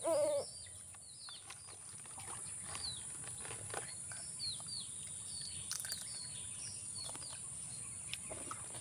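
Small birds chirping, with short calls that slide downward in pitch scattered throughout, over a steady high-pitched drone.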